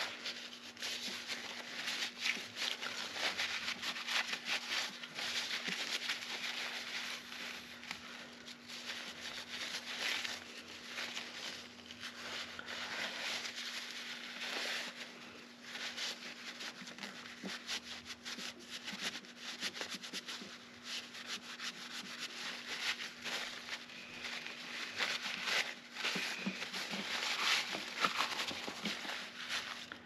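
Paper towel rubbing and wiping a brass combination-lock wheel clean, a continuous scratchy rustle made of many short irregular strokes.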